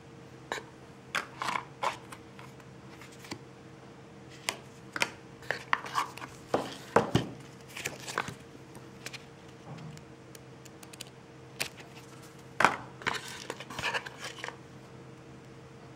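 Paper cards and a black cardboard gift box being handled: rustling, sliding and light knocks as cards are pulled out and the box is opened, with the sharpest knocks about seven seconds in and again near thirteen seconds.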